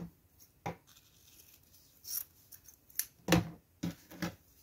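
A handful of short, separate snips and clicks from scissors and craft materials being handled, the loudest a little over three seconds in.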